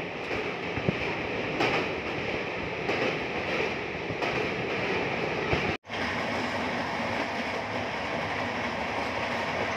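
Indian Railways express train running at speed, heard from inside a coach: a steady rumble and rattle of wheels on track as it crosses a long river bridge, with a few sharp clicks in the first two seconds. The sound cuts out for an instant about six seconds in, and the same steady running noise resumes.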